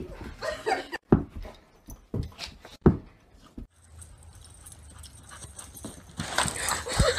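A dog's short vocal sounds among several knocks and thumps, then a cluster of shrill, rising cries and a thump near the end.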